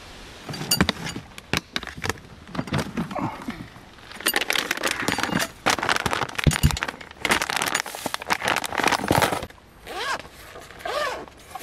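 Clattering, clinking and rustling of objects being handled, with frequent sharp knocks and a lull just before the end.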